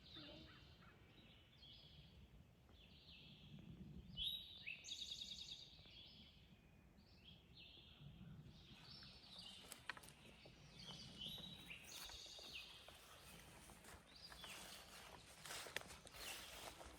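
Faint songbirds singing in the woods, short repeated trilled phrases over and over. From about halfway, light crunching steps on the forest floor.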